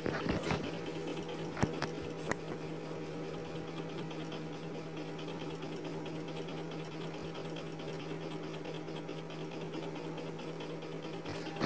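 Chicken pieces deep-frying in hot oil: a steady sizzle and bubble, with a few sharp pops in the first couple of seconds. Under it runs a steady low electrical hum.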